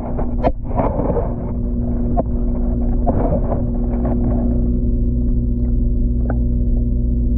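Steady low underwater rumble with a constant hum of several pitches, heard through the pond water. In the first four seconds there are splashy swishes of moving water and a few sharp clicks.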